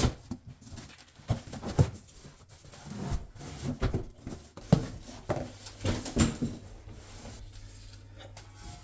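Irregular knocks, thuds and scraping as a boxed close-coupled toilet is tipped over and handled, the loudest thuds about two, five and six seconds in.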